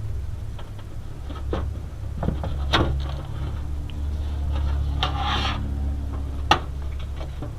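Hands handling computer parts: a few sharp clicks and knocks and a brief scraping rub about five seconds in, over a steady low hum.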